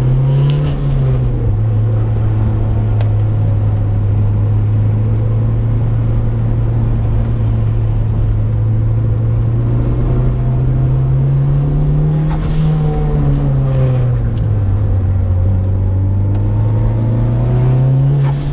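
Mitsubishi Lancer Evolution IX's turbocharged four-cylinder engine heard from inside the cabin, running hard through a cone course; its note holds mostly steady, climbing and dropping back about a second in and again about twelve seconds in, and climbing once more near the end.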